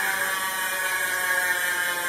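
Chris King ISO rear hub's Ring Drive freehub freewheeling as the wheel spins, ratcheting fast enough to make a continuous high-pitched buzz.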